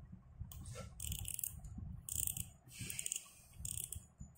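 Fanshun FK1000 spinning reel's front drag knob being twisted by hand to take off the metal spool: a series of about six short scraping rasps over low handling rumble.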